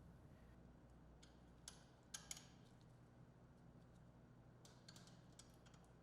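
Near silence with a few faint small clicks, around two seconds in and again near five seconds: the spherical bearing, washers and flange nut being fitted by hand onto a snowmobile's upper control arm.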